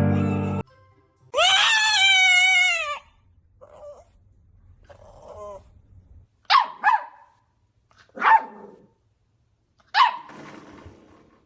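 Dog barking: a long high wavering call about a second in, then four sharp barks in the second half, the first two close together, with a short echo of a small room.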